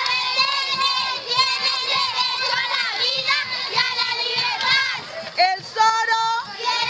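A group of children shouting and chanting together, many high voices overlapping, with a few drawn-out shouts near the end.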